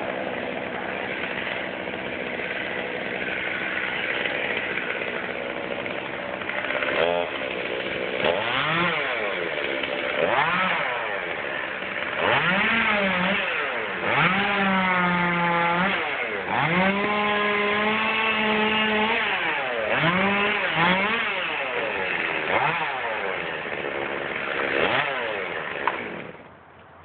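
Chainsaw idling at first, then revved up and down again and again, held at high revs twice for a couple of seconds while cutting through limbs. It goes quiet near the end.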